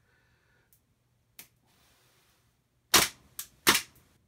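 Gas airsoft pistol, a Beretta 93R replica, firing two sharp shots about 0.7 s apart near the end, with a lighter click between them and a faint click about a second and a half in.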